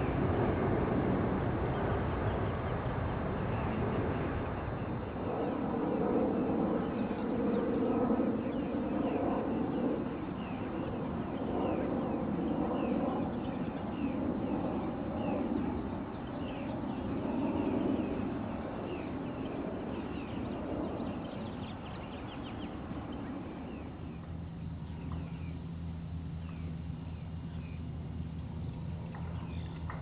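Outdoor field recording of many small birds giving quick, high chirps and calls over a steady low background rumble. About three-quarters of the way through, the rumble drops to a quieter steady low hum and the calls thin out.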